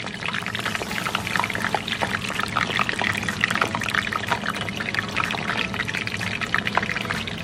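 Kibbeh deep-frying in a saucepan of hot oil: the oil sizzling steadily with dense, rapid crackles and pops.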